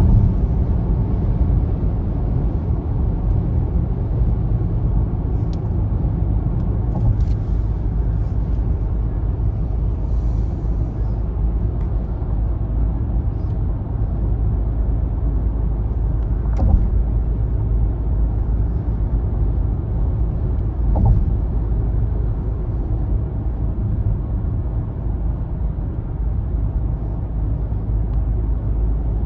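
Steady low road and engine rumble inside a car cruising at motorway speed, with a few faint clicks and one sharper click a little past halfway.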